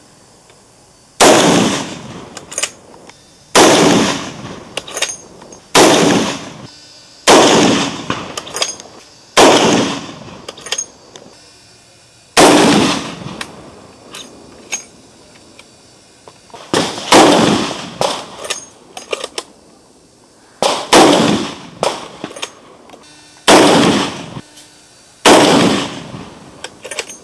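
Repeated shots from an SFH/R50 .50 BMG bolt-action rifle: about a dozen loud, sharp reports at uneven intervals of one and a half to three seconds, each with a ringing echo trailing off, with fainter reports between them.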